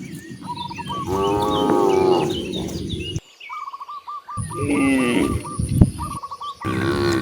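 Cows mooing: three long moos, the first about a second in, the second a little after the middle and the third near the end.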